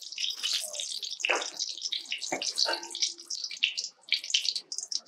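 Whole tomatoes deep-frying in hot oil, a crackling sizzle that thins out near the end, with a couple of short knocks.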